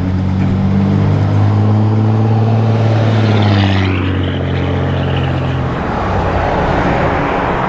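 A car's engine running steadily close by, its low hum fading about six seconds in, over steady road noise.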